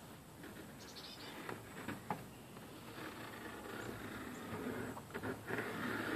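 Faint rustling and a few light clicks of fingers handling fiberglass mesh tape and pressing it onto a fiberglass cargo box's shell, the rustling heavier near the end.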